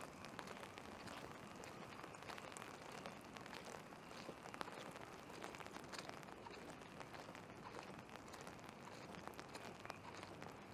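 Light rain pattering: a steady soft hiss dotted with many small, irregular drop ticks.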